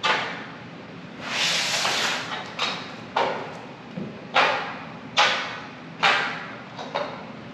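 Irregular sharp metallic knocks and bangs, about seven in all, each with a short ringing tail, plus a longer scraping rush about a second and a half in: sheet metal ductwork being handled and fitted.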